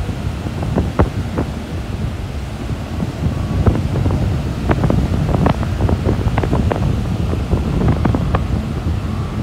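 Strong wind buffeting the microphone in irregular gusts, over the wash of surf breaking on the shore.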